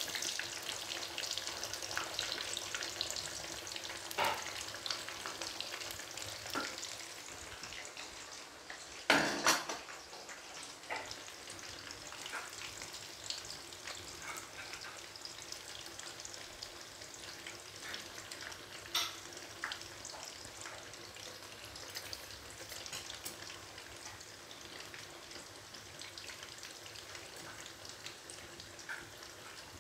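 Eggplant pieces deep-frying in hot oil: a steady sizzle with scattered crackling pops, one louder crackle about nine seconds in, the sizzle slowly growing quieter.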